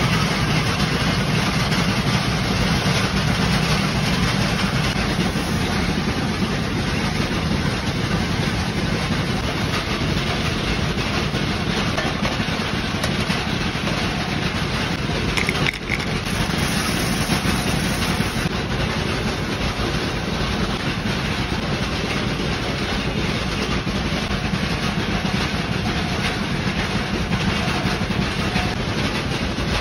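Steady, loud drone of running machinery, a continuous low hum with a dense rushing noise over it that does not change.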